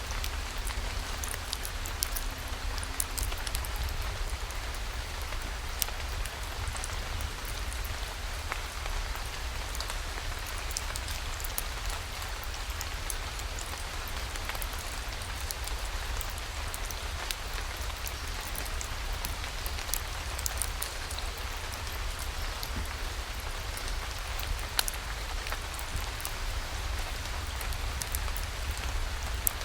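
Steady rain with scattered sharp drop ticks over an even hiss, and a low steady rumble underneath.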